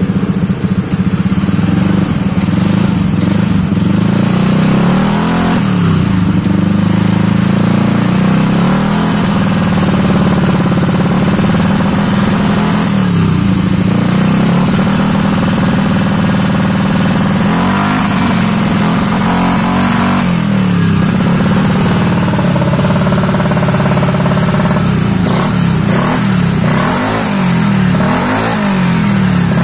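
Yamaha Aerox scooter's single-cylinder engine running on an ECU map tuned for a rumbling 'helicopter' idle, its revs rising and falling over and over as the throttle is blipped.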